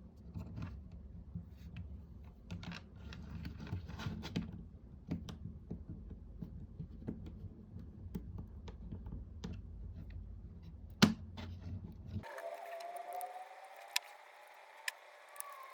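Small clicks, taps and handling noises of small hard objects over a low hum, with one sharp loud click about eleven seconds in. About twelve seconds in the sound cuts abruptly to a thinner recording with a faint rising tone and a few clicks.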